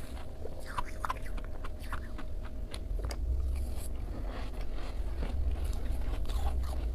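Freezer frost being bitten and chewed, with irregular crisp crunches and crackles over a steady low rumble.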